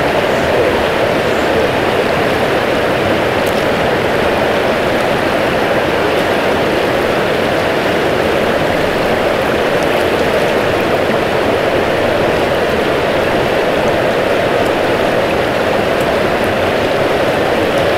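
Small river's water rushing, a loud, even, unbroken rush of flowing water.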